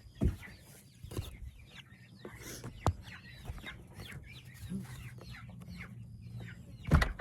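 Chickens clucking, with many short calls throughout and a few knocks, the loudest just before the end.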